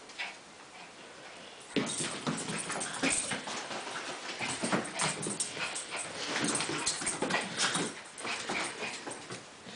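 Pet dog whimpering and whining over and over, starting about two seconds in after a quiet moment.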